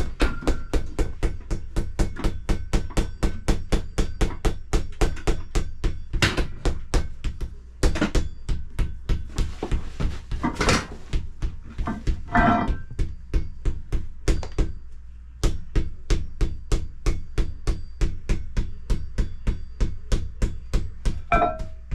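Rapid, evenly spaced hammer blows on an anvil in a steady rhythm, pausing briefly about two-thirds of the way through.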